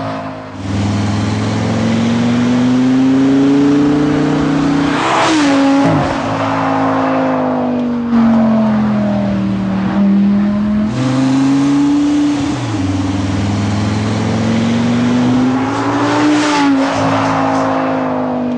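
Audi R8's 5.2-litre V10 running through an Akrapovič titanium slip-on exhaust as the car is driven, the engine note rising and falling with the revs. There are sudden rev jumps about five and eleven seconds in, and a few sharp crackles near the end.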